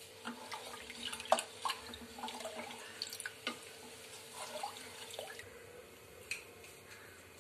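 A hand mixing spice powders into water in an aluminium pot: irregular sloshing and small splashes, with a few sharp clicks against the pot, the loudest about a second in. It goes quieter near the end, with one last click.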